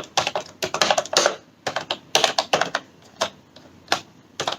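Keys of a typewriter-style wireless keyboard with round keycaps clacking as they are pressed, in an irregular quick run for the first couple of seconds, then a few single presses.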